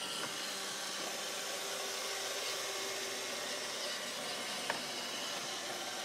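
Roomba robot vacuum running: a steady whirring hiss of its vacuum motor and brushes, with one short click about three-quarters of the way through.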